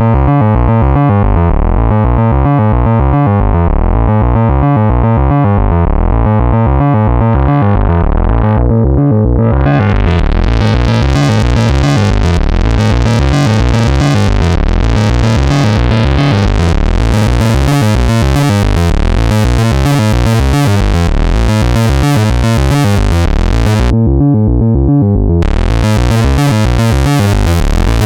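Eurorack synthesizer patch: a Morphing Terrarium E350 oscillator playing a repeating note pattern through a voltage-controlled filter whose cutoff is swept by an LFO. It starts abruptly, turns duller about a third of the way in, then opens up much brighter, and dulls briefly again near the end.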